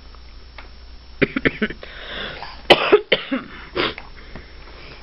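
A few short coughs: a loud pair about three seconds in and another a second later, with fainter short sounds just before.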